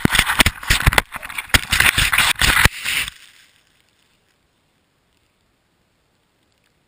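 Snow scraping and knocking against an action camera's housing as it tumbles through snow: a quick, irregular run of rough scrapes and bumps for about three seconds. It then trails off into near silence.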